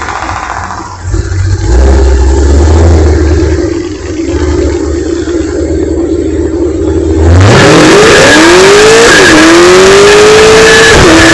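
Chevrolet Camaro ZL1's supercharged V8, heard from inside the cabin, running at low revs, then floored from a roll about seven seconds in. The engine note gets suddenly louder and climbs hard in pitch, drops at a gear change, climbs again and drops at a second gear change near the end.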